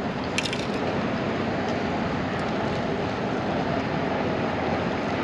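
A steady wash of outdoor background noise with no distinct pitch, and one short click about half a second in.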